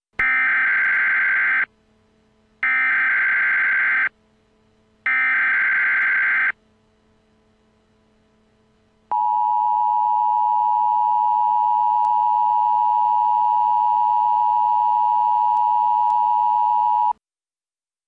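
Emergency Alert System SAME header: three bursts of warbling data tones, each about a second and a half long with a second between them. Then the EAS attention signal, a steady two-tone beep held about eight seconds before it cuts off, opening an Emergency Action Termination alert.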